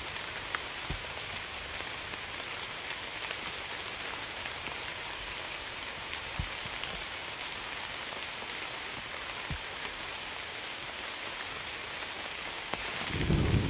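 Steady rain falling, an even hiss with scattered single drops ticking. Near the end a low rumble of thunder starts to build.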